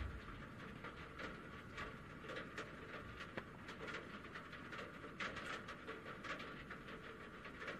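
Faint handling noise from a hand-held camera: scattered soft, irregular clicks and rubs over a low steady hiss.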